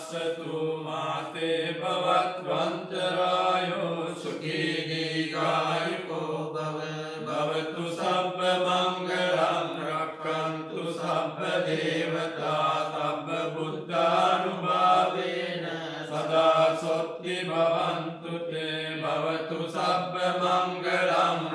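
Group of Theravada Buddhist monks chanting Pali verses in unison in a slow, steady drone, the voices pausing briefly for breath between phrases.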